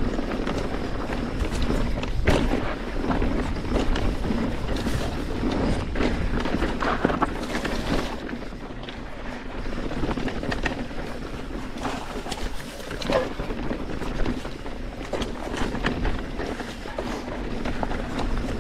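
Mountain bike descending a rocky trail: tyres rolling over loose rocks with frequent sharp knocks and rattles, over a low rumble of wind on the microphone.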